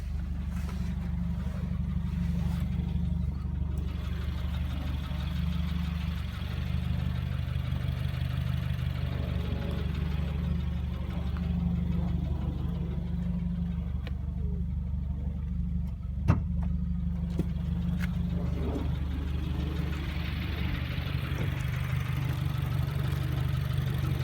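2015 Subaru WRX's turbocharged flat-four engine idling steadily. A few faint scattered clicks and one sharp click about sixteen seconds in.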